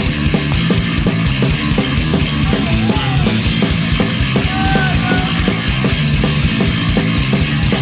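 Punk rock band playing live, with fast, driving drums and distorted electric guitar and bass, no vocals.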